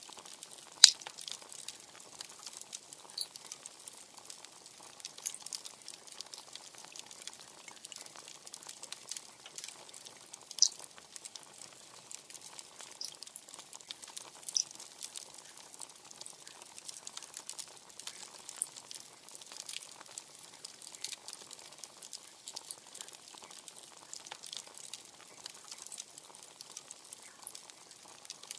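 Bonfire crackling with a constant spatter of small crackles and a few sharp, louder pops, the loudest about a second in.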